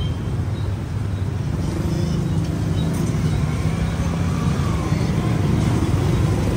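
Street traffic: motor vehicle engines running close by, a steady low hum that grows slightly louder.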